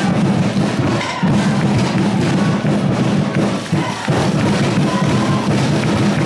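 Loud music with drums playing continuously.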